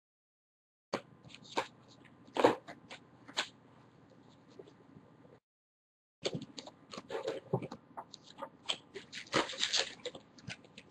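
Baseball cards and pack wrappers being handled on a table: scattered light clicks and rustles. The sound cuts out to dead silence for about the first second and again for nearly a second around five seconds in.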